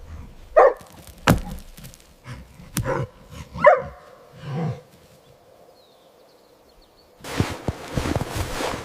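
A dog gives a few short barks, with sharp knocks in between. About seven seconds in, a busy rustle of steps begins.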